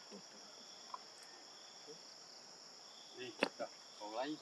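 A chorus of insects keeps up a steady, high-pitched drone. Near the end there is a sharp click and a brief voice.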